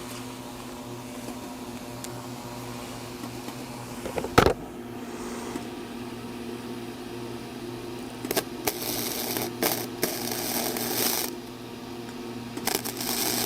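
Flux-core welder striking an arc on thin 16-gauge exhaust pipe: crackling and sputtering in two runs, about three seconds and then about one second, over a steady low electrical hum. A single sharp knock comes about four seconds in.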